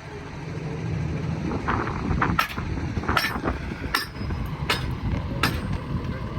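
Hammer striking steel on a railroad diamond crossing: five sharp, evenly spaced metallic blows about 0.8 s apart, starting a couple of seconds in, some ringing briefly. A steady low engine rumble runs beneath.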